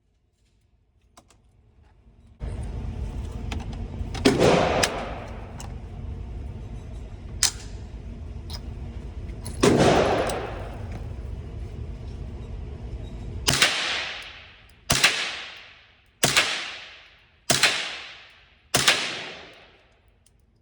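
Shots from a .22 rimfire pistol, each with a trailing echo: two spaced shots and a fainter crack, then a steady string of five about a second and a half apart. A steady low noise runs under the first shots and stops about two-thirds of the way in.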